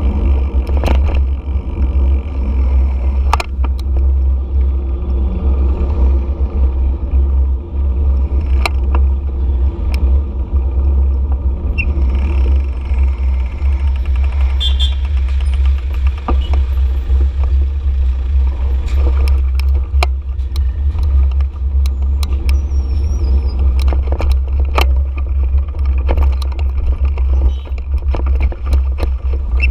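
Steady low rumble of wind and engine noise picked up by a GoPro on a moving motorcycle in street traffic. Scattered sharp clicks and knocks run through it, and a brief high beep comes about halfway through.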